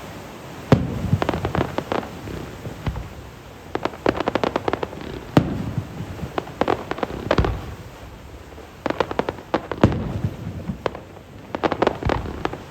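Aerial fireworks going off: single sharp bangs and clusters of rapid crackling pops, several runs of them one after another.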